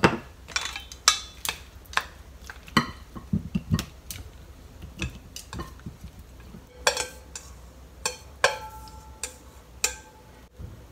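Kitchen utensils clinking, tapping and scraping against a bowl and a plate as persimmon and cucumber salad is served, in irregular knocks with a couple of short ringing clinks of dishware.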